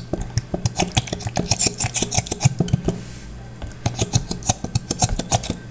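A plastic bottle of homemade seasoning paste being squeezed upside down over a bowl of juice: rapid, irregular crackling and clicking, dense for about three seconds and then thinning out.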